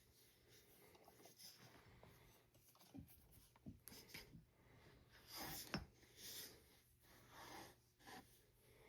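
Faint rubbing and a few light knocks as a rubber strap wrench is worked around an air rifle's barrel shroud to turn it.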